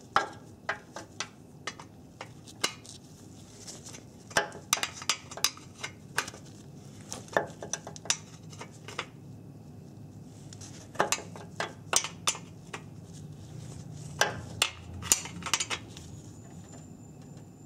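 1/4-inch-drive ratchet clicking in short runs with pauses between them as a fan-shroud bolt is snugged up.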